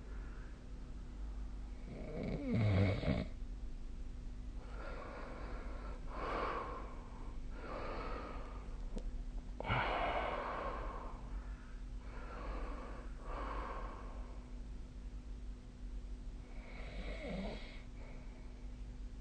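A sleeping person snoring, with about eight heavy, noisy breaths a second or two apart. The loudest is a low-pitched snore about two seconds in. A steady low hum runs underneath.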